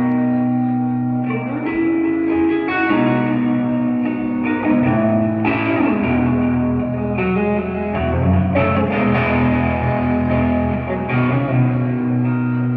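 Live rock band playing an instrumental intro: electric guitar chords ringing and changing every second or two over bass.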